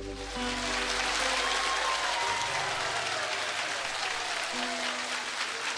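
A group of people clapping, starting just after the song's last chord and running on steadily, with a few soft held notes of background music beneath.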